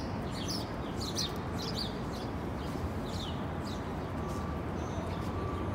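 Small birds chirping, many short high calls a second in an uneven chatter, over steady outdoor background noise.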